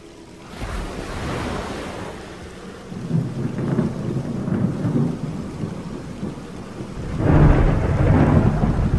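Thunderstorm: rain with rolling thunder, swelling into a louder rumble about seven seconds in.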